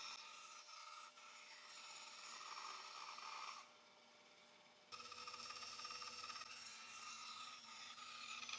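Faint scratching of a pencil on cedar boards, tracing curved marks along a cardboard template, in a few short strokes.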